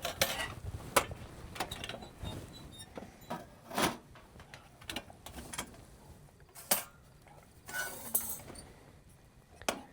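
Metal parts of a portable camp stove clinking and knocking as it is unpacked and set up: scattered separate clicks and clanks, the loudest about four seconds in and again near seven seconds.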